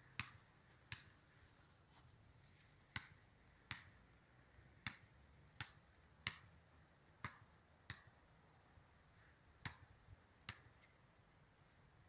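Near silence broken by about a dozen sharp, short clicks, irregularly spaced roughly once a second.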